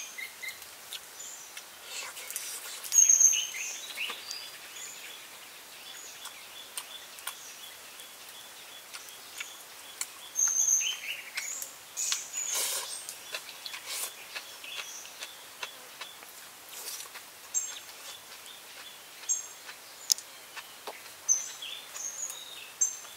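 Small birds chirping with short, high calls scattered throughout, over a quiet forest background, mixed with light clicks and rustles of prawns being peeled and noodles eaten by hand and chopsticks; a louder, noisier stretch comes about ten to thirteen seconds in.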